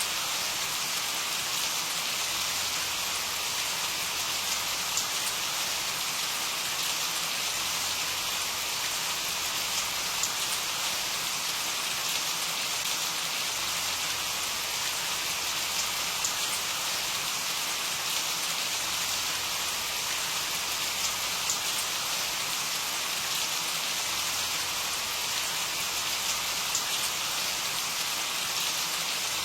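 Steady rain falling and pattering on a surface, an even hiss with small scattered drop ticks.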